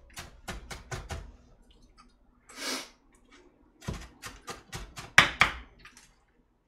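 Kitchen knife chopping green onion on a cutting board: quick runs of chops, about five a second, in two bursts with a pause between them, and a brief noise in the pause.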